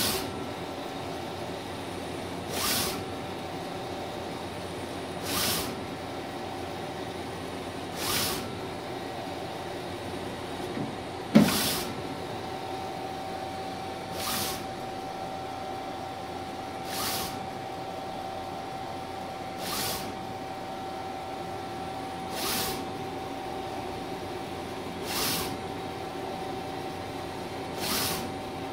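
Mimaki 3042 HG UV-LED flatbed inkjet printer printing: the print-head carriage passes across the bed about every 2.7 seconds, each pass a short swish, over a steady hum with a thin whine. A single loud clunk comes about 11 seconds in, and the whine is stronger after it.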